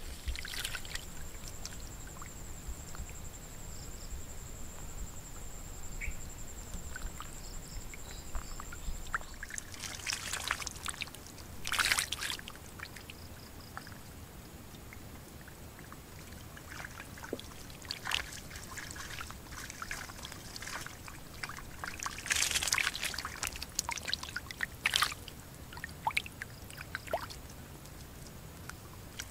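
Shallow muddy water trickling through a dug channel into a bamboo fish trap, with a few brief splashes, the loudest about twelve seconds in and again from about twenty-two to twenty-five seconds in. A thin, steady high whine runs for the first nine seconds or so, then stops.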